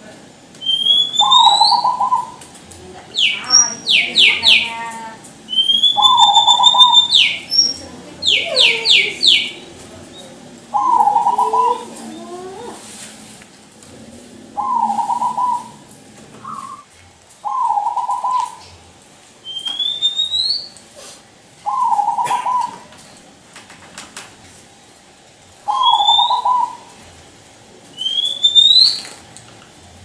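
Zebra dove (perkutut) cooing, a short coo repeated every few seconds. Other birds sound among the coos with higher rising whistles and, twice in the first ten seconds, a quick trill.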